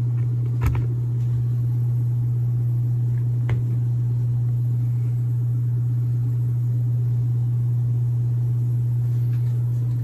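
Indoor air handler of a heat pump system running, with a loud, steady low hum.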